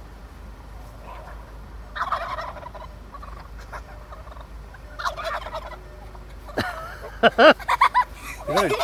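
Wild turkey toms gobbling: a few short calls, then a run of loud, rapid, rattling gobbles in the last two seconds or so.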